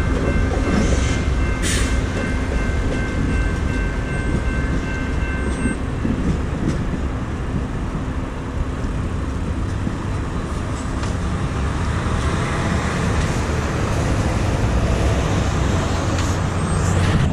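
Steady rumble of a train at a railroad grade crossing, mixed with road traffic. The crossing's warning bell rings as a high, steady tone and stops about six seconds in.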